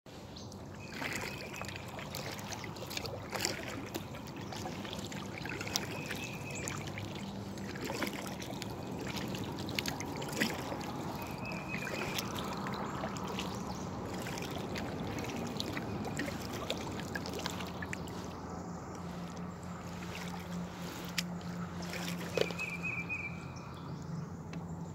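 Kayak paddle strokes in calm water, splashing and dripping, with scattered small knocks. Short high chirps come now and then.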